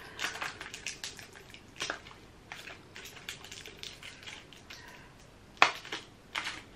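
Crinkly plastic packaging and small cosmetic items handled and rummaged through. Scattered light clicks and rustles, with one sharper click about five and a half seconds in.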